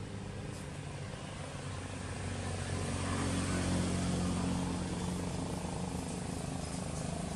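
A steady low engine drone that grows louder a few seconds in and then holds.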